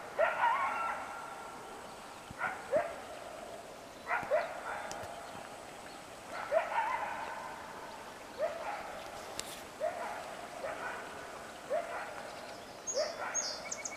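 Coyote barking over and over, short rising barks every second or two, some drawn out into a whine. A bird chirps a few times near the end.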